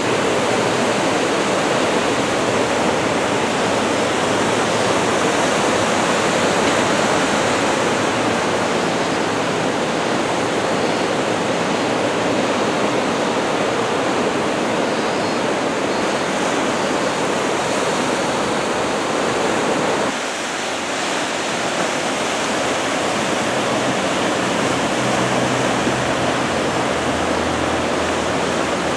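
Steady rushing sound of ocean surf, head-to-shoulder-high swell from an approaching typhoon, dipping briefly about twenty seconds in.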